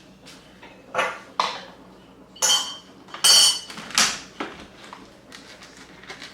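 Several clinks and clatters of small hard objects being handled and set down, five in all, two of them with a short metallic ring.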